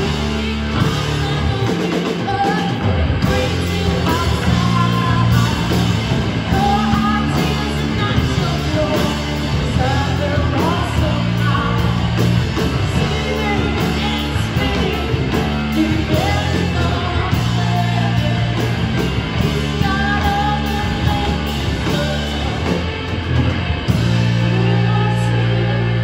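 Rock band playing live: a woman singing lead over electric guitars, bass and drums, with a long held low chord near the end.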